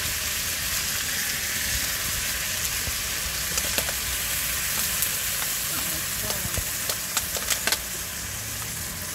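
Chicken and ginger sizzling steadily as they stir-fry in a wok. A spatula scrapes and taps the pan several times, most often in the second half.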